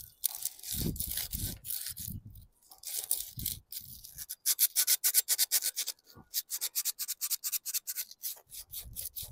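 Sandpaper rubbed by hand along a rusty steel lawn mower wheel axle, in quick back-and-forth scratchy strokes that come faster and thicker in the second half, scouring off scaly rust.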